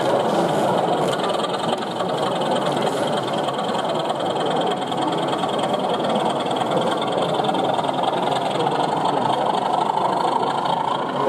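Steady engine-like drone from a model diesel locomotive running slowly along the layout.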